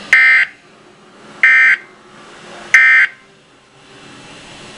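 Weather radio sounding three short, loud electronic data bursts, each about a third of a second long and about 1.3 seconds apart. These are the SAME end-of-message code that closes an alert broadcast.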